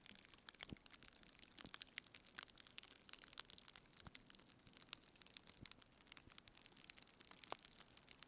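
Faint, irregular small clicks and crackles of hand-soldering through-hole connector pins with a soldering iron and solder wire on a circuit board.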